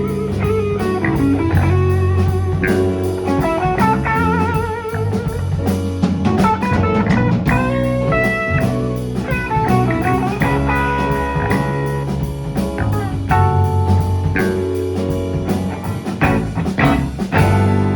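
Live rock band playing an instrumental passage with a blues feel: a guitar lead line with wavering, bent notes over bass guitar and a drum kit keeping a steady beat.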